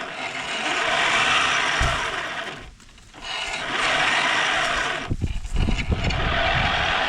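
Polaris ATV winch paying out its old steel wire rope, a steady grinding whir in three long spells with two short breaks between them.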